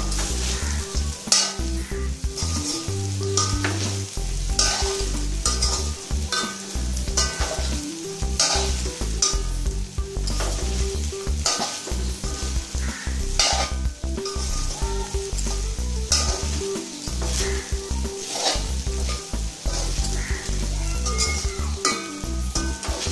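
Spatula stirring and scraping sabudana khichdi (soaked tapioca pearls with potato and peanut powder) in a pan over a low flame, with a steady frying sizzle. Short scraping strokes come about once a second.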